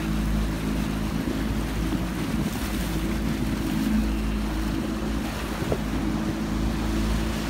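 A boat motor running at a steady cruising speed, with wind rumbling on the microphone.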